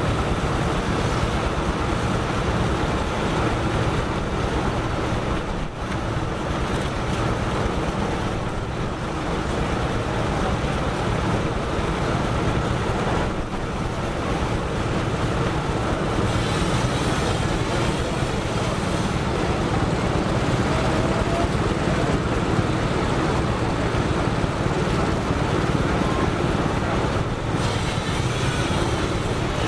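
Case steam traction engine running steadily under belt load, driving a sawmill: continuous exhaust chuffing mixed with the running noise of the mill machinery.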